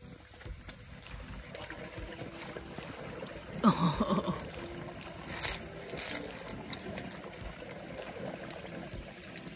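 Waste water from an RV's holding tank rushing through a flexible sewer hose into a dump station inlet, with a louder gurgling surge about three and a half seconds in.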